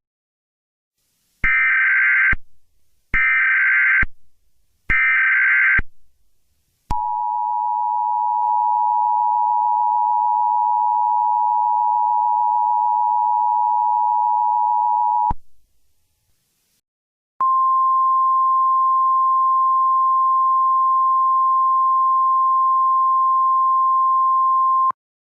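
Emergency Alert System tones. Three short bursts of warbling SAME header data come first. The two-tone EAS attention signal follows for about eight seconds, then after a short pause a single steady tone sounds for about seven and a half seconds.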